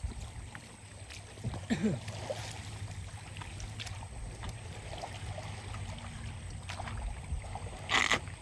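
Quiet surroundings aboard a small wooden sampan on the water: a steady low rumble with scattered light knocks. There is a short wavering creak-like sound about two seconds in, and a brief burst of hiss near the end, the loudest thing heard.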